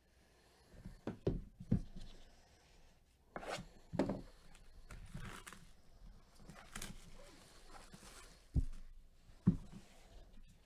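Cardboard trading-card hobby box handled with gloved hands: a string of sharp knocks and bumps as the box is moved about, with cardboard scraping and rustling between them.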